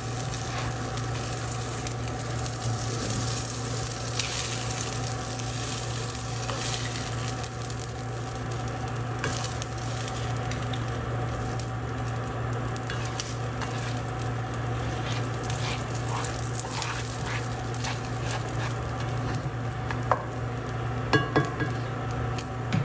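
Butter and oil sizzling steadily in a hot cast-iron skillet as pollock filets are lifted out with a metal spatula, with a few sharp clicks near the end.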